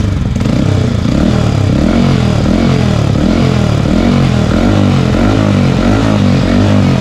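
Yamaha MT-15's 155 cc single-cylinder engine through an aftermarket under-belly exhaust, revved in quick repeated throttle blips, about ten rises and falls. The exhaust note is deep and warm.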